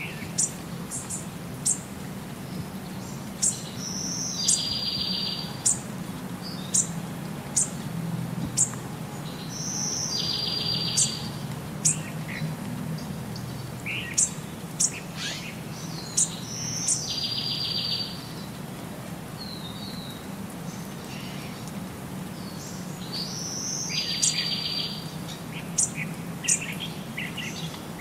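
Small birds chirping, with short sharp high chirps about once a second and a longer buzzy trill every six or seven seconds, over a steady low hum.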